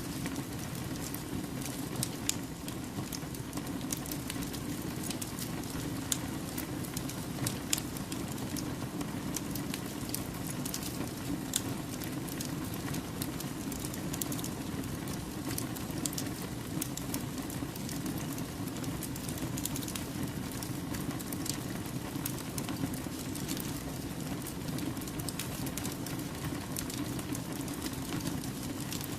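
Wood campfire burning, a steady low rushing with scattered sharp crackles and pops from the burning logs.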